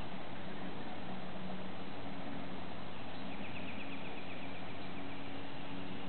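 Steady outdoor hiss with a faint low hum; a little past halfway a small bird gives a quick run of high chips, about a second and a half long.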